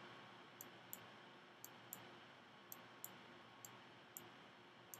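Faint clicks of a computer pointing device, about nine of them at irregular intervals, over low steady hiss, as lines are drawn one by one in a drawing program.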